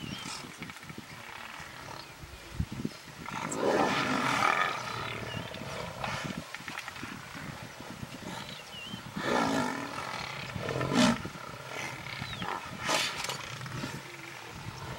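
A pride of African lions snarling and growling while feeding on a buffalo kill, in several loud rough bouts, the strongest about 4, 9½, 11 and 13 seconds in.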